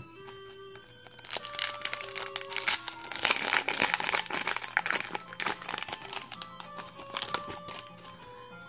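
Foil Pokémon trading-card booster pack wrapper crinkling as it is handled and opened, a dense crackle from about a second in that fades out after about six seconds. Soft background music with single held notes plays throughout.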